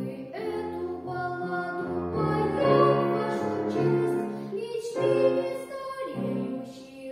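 A boy singing a classical song with a grand piano accompanying him, holding long notes over the piano's chords.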